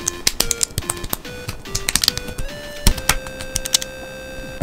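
LEGO bricks clicking and snapping as plastic pieces are pressed together and handled, in irregular sharp clicks with one louder snap about three seconds in, over background music.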